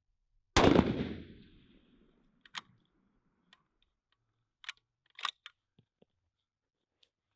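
A single 6.5 Creedmoor bolt-action rifle shot about half a second in, with an echo fading away over about a second and a half. It is followed by a series of short metallic clicks and clacks, the bolt being worked to eject the case and chamber the next round.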